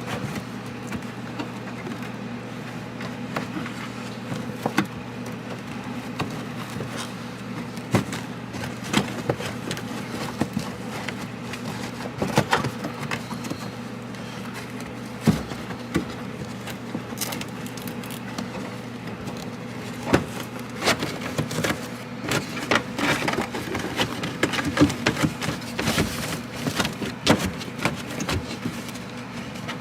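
Scattered metallic clicks and knocks of hand tools working on a car's antenna mast mount while the retaining nut is tightened, coming more often in the second half, over a steady low hum.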